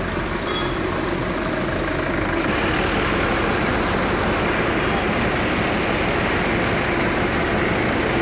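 Steady engine and road-traffic noise, getting louder about two and a half seconds in.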